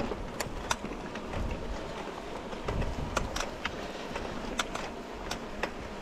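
Mountain bike rolling over a rough grassy trail: a steady low rumble of tyres and grass, broken by irregular sharp clicks and rattles from the bike jolting over bumps.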